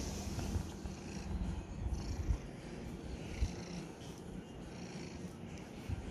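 Domestic cat purring steadily, close to the microphone while being stroked.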